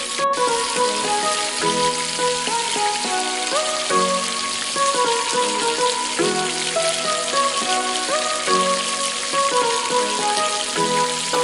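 Sliced onions and green chillies sizzling steadily in hot oil in a pot while being fried, under background music with a melody that repeats every couple of seconds.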